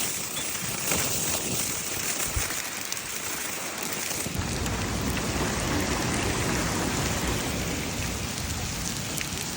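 Heavy rain pouring down and pattering on hard surfaces.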